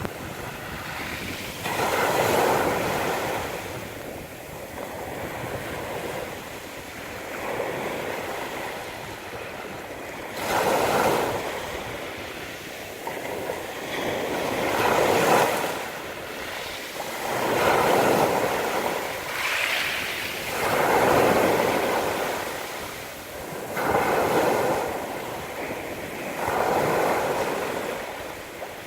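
Sea waves washing onto a beach, each wave swelling and fading in a rushing hiss every three to four seconds.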